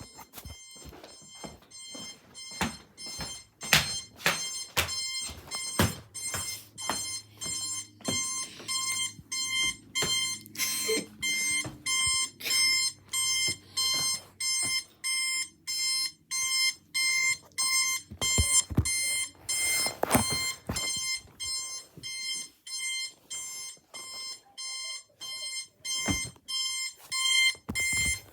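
Electronic alarm clock beeping: a high, steady beep repeating about twice a second, with occasional sharp clicks or knocks over it.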